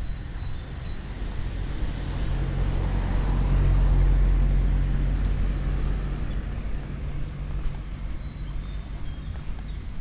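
A passing engine: a steady low hum swells to its loudest about four seconds in, then fades away again.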